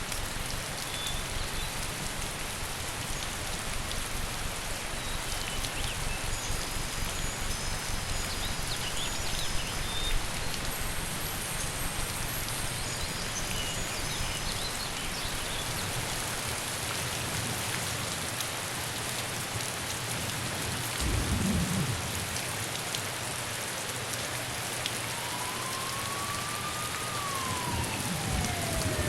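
Steady rain falling on city streets, with a brief low rumble of thunder about three-quarters of the way through. Near the end a siren wails, rising and falling.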